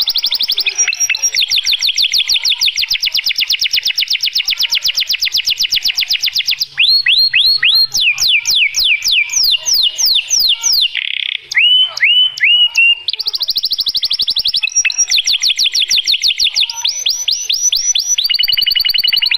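Male canary singing a long song of rapid trills of repeated notes. Partway through it switches to slower notes that sweep downward, about three a second, then goes back to fast trills.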